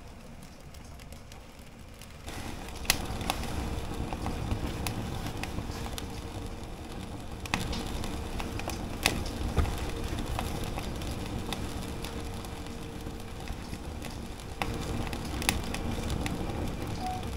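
Firewood burning in a cast-iron wood stove, crackling with sharp pops scattered every second or so; the fire gets louder about two seconds in.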